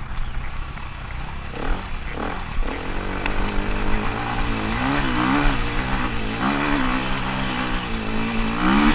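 KTM dirt bike engine pulling up a steep, rocky hill climb, its revs rising and falling with the throttle. It gets clearly louder from about three seconds in, with wind noise on the helmet microphone.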